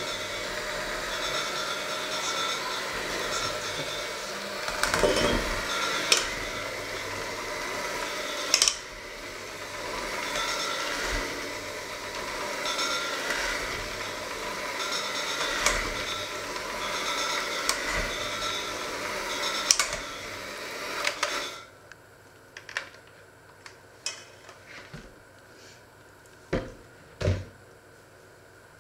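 Electric hand mixer with spiral dough hooks kneading a stiff dough in a stainless steel bowl, its motor running steadily with some clatter of the hooks against the bowl. It is switched off about 21 seconds in, followed by a few light knocks.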